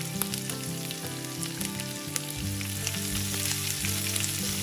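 Chopped green chillies, ginger, curry leaves and dried red chillies sizzling in hot oil in a nonstick pan, with scattered crackles from the frying mustard seeds and dals: the tempering for upma. Near the end a spatula begins stirring the pan.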